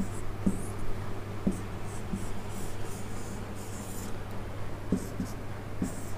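Marker drawing on a whiteboard: a run of short, irregular scratchy strokes as a diagram is sketched, over a steady low hum.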